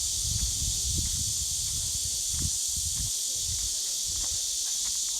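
A steady, high-pitched drone of insects in the summer forest, with irregular low thumps underneath.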